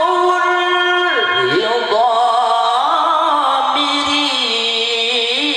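A male qari's voice in melodic, mujawwad-style Quran recitation, holding one long ornamented vowel. About a second in, the pitch drops and then wavers through lower turns before rising again near the end.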